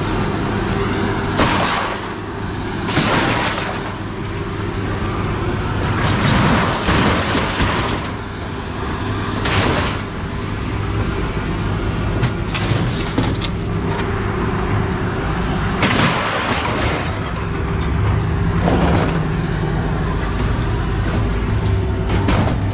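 A vehicle engine runs steadily, with a string of short clanks, bangs and rattles at irregular intervals, some lasting a second or so.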